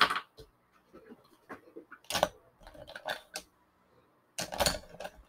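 Plastic markers being handled and set down on a tabletop: scattered clicks and taps, with a busier clatter near the end.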